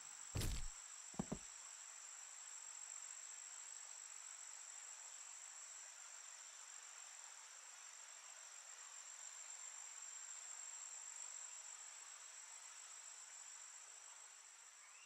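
Steady high chirring of crickets in the grass, with two short thumps near the start as one man tackles the other to the ground. The chirring fades out at the very end.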